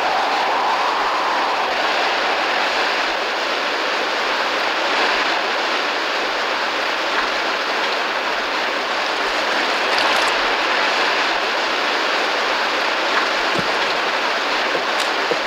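Heavy rainstorm sound effect: a steady hiss of pouring rain, with a faint whistle of wind rising and falling near the start.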